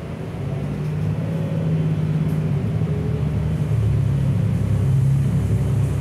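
Gillig low-floor city bus engine and drivetrain under way, heard from inside the cabin: it grows louder over the first two seconds as the bus picks up speed, then holds a steady drone.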